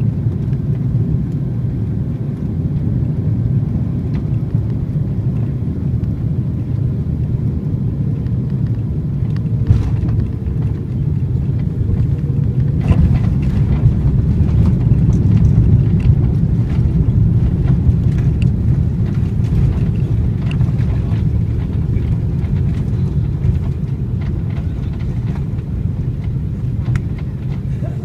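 Cabin noise of an Airbus A330-300 landing: a steady low rumble, with a knock about ten seconds in as the wheels touch down. From about thirteen seconds the rumble and rattle grow louder for several seconds as reverse thrust and braking slow the aircraft on the runway, then ease off.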